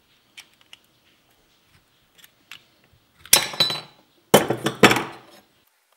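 Tin snips cutting 1.2 mm sheet steel, which is thick for the snips: a few faint clicks, then two loud cutting bursts about three and four and a half seconds in.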